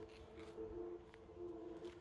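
Faint background music: low sustained notes that swell and fade in turn, with a few light ticks.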